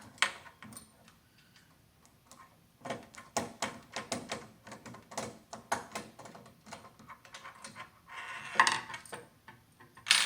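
Irregular light clicks and clinks of a curtain track's bracket arm and its nuts being handled and fitted by hand, with a louder rattling cluster about eight and a half seconds in and a sharp click near the end.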